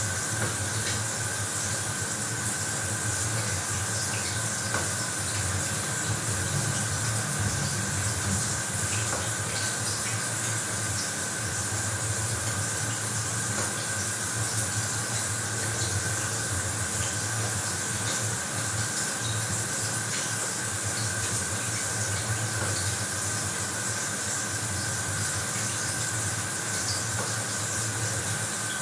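Bathroom shower running, a steady spray of water hissing without pause, with a faint steady high tone underneath.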